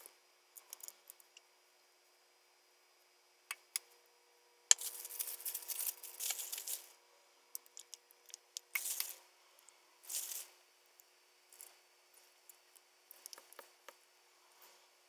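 Hands seasoning potato halves on a metal baking sheet and topping them with chopped onion: scattered light clicks and taps, with short bursts of rustling and scraping, the longest about five to seven seconds in.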